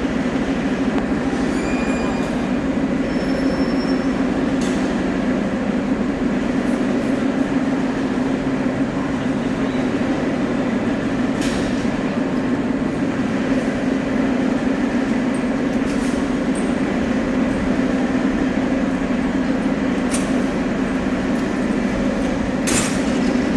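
St Petersburg metro train running with a steady, even rumble, punctuated by a few sharp clicks or knocks from the wheels and track.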